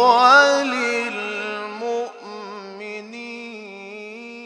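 A male Quran reciter's solo voice drawing out a long ornamented melisma in maqam Nahawand, holding the end of 'wa li-wālidayya' with a wavering, turning pitch. It starts loud and grows softer after about two seconds.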